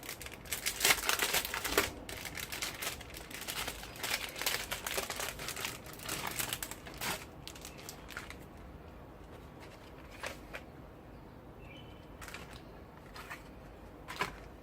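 Plastic packaging crinkling and rustling as a gel anti-vibration pad is handled and unwrapped. The crinkling is dense for the first seven seconds or so, then thins to scattered rustles and clicks.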